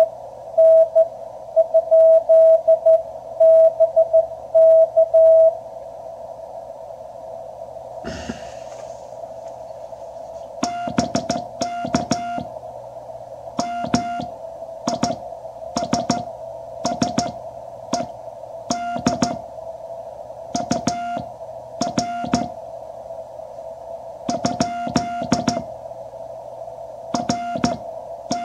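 QRP Labs QCX transceiver's audio: a steady hiss of band noise through its narrow CW filter, with an incoming Morse code signal keyed as a steady tone for the first five seconds or so. From about ten seconds in, Morse is sent on a wooden paddle key in short keyed groups: the transceiver's sidetone, with a sharp click on each element.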